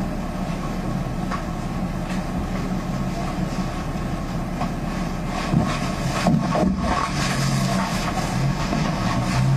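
Steady low background hum and rumble, with a few sharp rustles and clicks past the middle.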